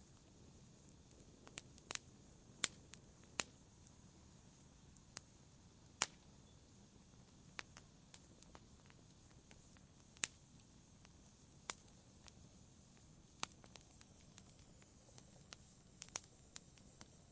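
Wood fire in a fireplace crackling: sharp, irregular pops and snaps, about one every second or so, over a faint steady hiss.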